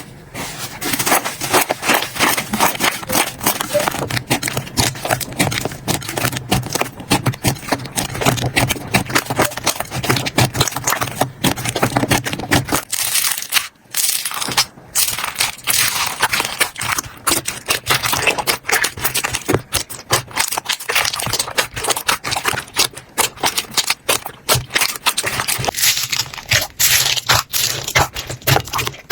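Slime being squished, poked and stretched by hand, giving a dense run of quick crackling pops and sticky clicks, with a brief break about halfway through before a new batch starts.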